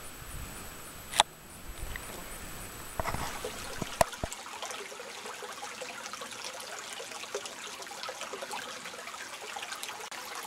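Water trickling and gurgling, a fine steady patter of small drips and splashes. There are two sharp clicks, about one and four seconds in, and a low rumble that drops out after the second click.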